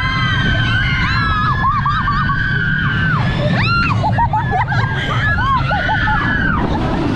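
Roller coaster riders screaming, several high voices overlapping in long held and rising-falling cries, over the steady rumble of the moving ride.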